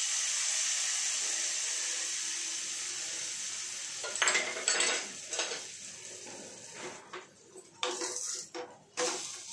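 Hot oil tempering of mustard seeds, red chillies, curry leaves and asafoetida sizzling as it is poured onto coconut chutney, fading away over about four seconds. After that, clinks of utensils and a spatula scraping on a frying pan.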